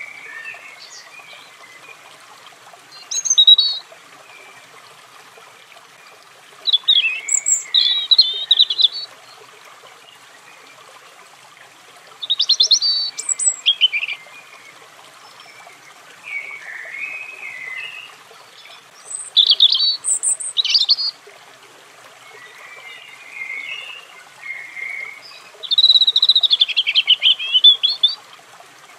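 European robin singing: about seven short phrases of quick, high, warbling notes, each a second or two long, separated by pauses of a few seconds. A faint steady hiss lies underneath.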